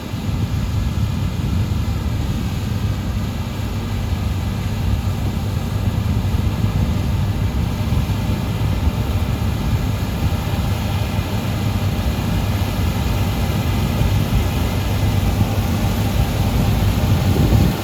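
Combine harvester running steadily while cutting winter barley: a continuous low engine and machinery drone with a faint steady whine above it.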